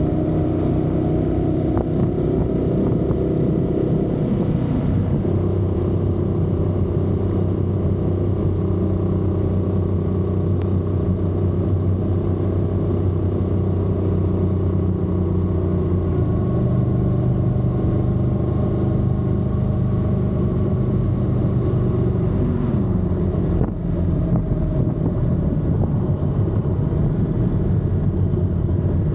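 Honda NC750X's parallel-twin engine running as the motorcycle rides along, holding a steady pitch with a few step changes. Near the end the pitch falls, and there is a brief drop in loudness.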